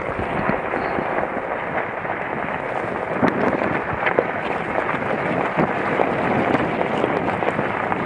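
Vehicle tyres rolling slowly over a gravel road: a steady rushing noise with scattered sharp clicks of stones.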